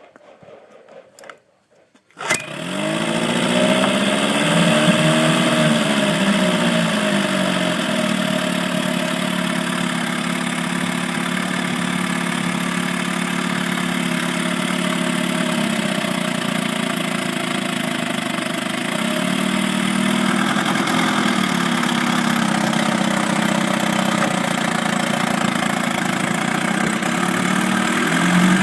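Viking 6 hp small engine starting about two seconds in, freshly rebuilt carburettor, its speed rising and falling as it catches before settling into steady running. Its speed swells briefly again a few times.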